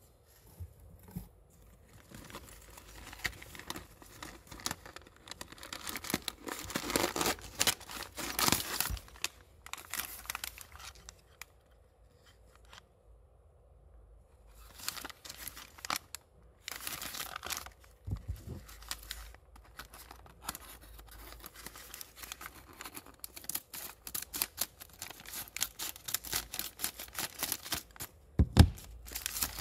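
Crinkly plastic packaging wrap being handled, crumpled and torn open, in irregular stretches of crackling with short pauses. Near the end there is a single sharp thump.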